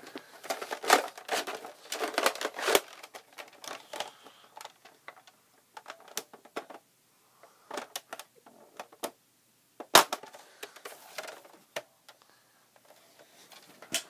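Close rustling and clicking handling noises, thick for the first three seconds and then scattered, with one sharp snap about ten seconds in.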